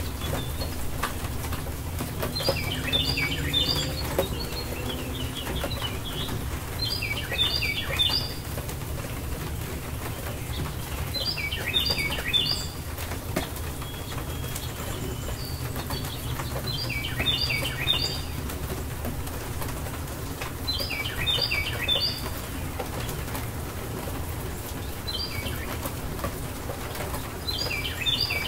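A songbird singing a short, high phrase of a few quick notes, repeated about every four to five seconds, over a steady low background rumble.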